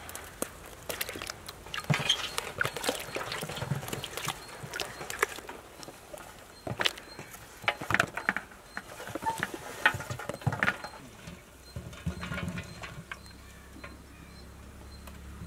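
Small whole brinjals (eggplants) knocking and rolling against each other and a metal tray and tub as they are moved by hand: irregular knocks and clatters.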